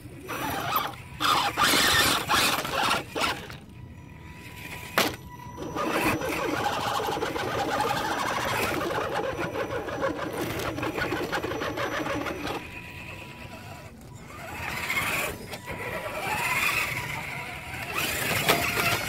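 Scale RC rock crawler's electric motor and gear train whirring as it climbs over rock, in spells of throttle: a long steady whir through the middle, rising and falling in pitch near the end. A few loud scuffing bursts come in the first few seconds.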